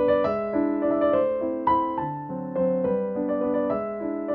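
Background piano music: a gentle run of held notes and chords, with a new note or chord struck every half second or so.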